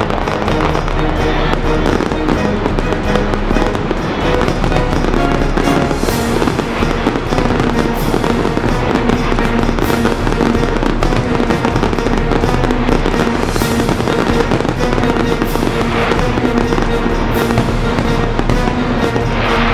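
An aerial fireworks display with shells bursting and crackling over loud music. From about six seconds in, sharp bangs come every two seconds or so.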